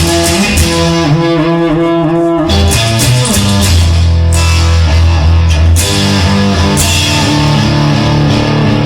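Instrumental rock music with guitar, bass and drums, loud and steady, and no singing. About two and a half seconds in, a heavier bass line comes in.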